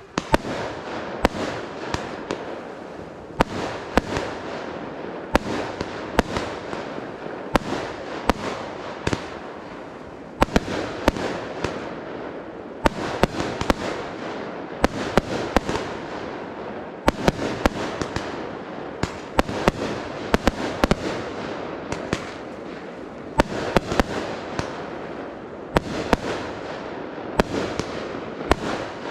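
Fireworks display: shells bursting one after another, with sharp bangs every second or so over a continuous crackle and hiss.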